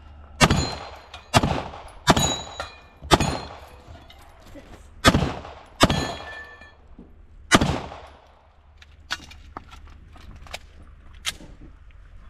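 Seven pistol shots fired at an uneven pace over about seven seconds, each a sharp crack with an echoing tail, with ringing from the steel targets after several of them. A few much fainter sharp cracks follow near the end.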